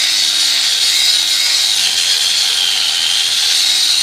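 Angle grinder cutting through small metal pieces with a grinding disc rather than a cutting wheel: a loud, steady high whine that drops a little in pitch about halfway through as the disc bites.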